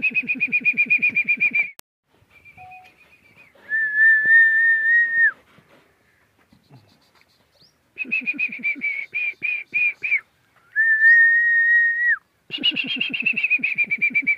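A person whistling in a herder's pattern. Long, steady, level whistles that fall away at the end alternate with warbling, trilled whistles, about three of each.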